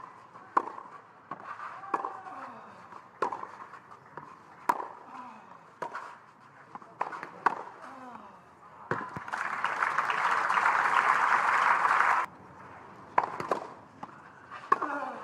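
Tennis rally: sharp racquet-on-ball strikes about once a second. Then crowd applause for about three seconds, which cuts off suddenly, and a few more sharp ball hits near the end.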